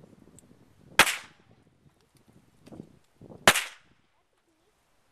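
Two shots from a GSG-5 .22 LR rifle, sharp cracks about two and a half seconds apart, each with a short ringing tail.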